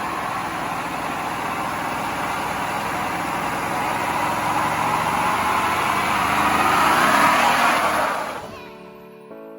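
Chevrolet Silverado pickup doing a burnout: the engine held at full throttle with the tires spinning, a loud, steady rush that builds for about eight seconds and then cuts off, giving way to soft piano music.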